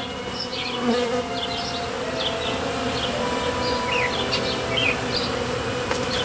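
Honey bees buzzing around a freshly installed hive: a steady hum, with single bees' drones rising and falling in pitch as they fly past. Short high chirps sound now and then behind the buzz.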